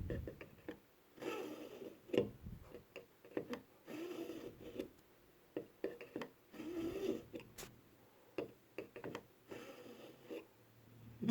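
Swiss Army pocket knife blade pulled repeatedly through the coarse slot of a KitchenIQ two-stage knife sharpener: a short rasping scrape with each pull, about four longer strokes among lighter clicks and taps.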